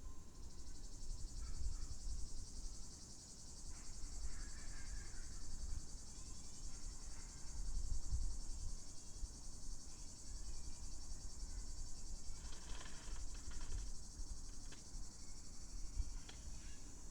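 Cicada buzzing steadily and without a break in summer ambience, high and dense. A low rumble runs underneath, and a few brief faint sounds come through in between.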